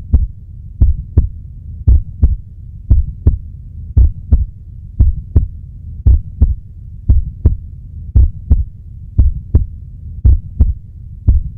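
Heartbeat sound effect: slow double thumps, one lub-dub about every second, over a low steady hum.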